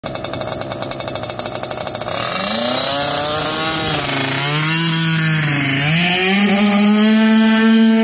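Two-stroke scooter engine with a Polini 94cc Big Evo cylinder kit and Polini Big Evo exhaust. It idles with a fast, even putter, then from about two seconds in it is revved up and down twice before holding steady at high revs near the end.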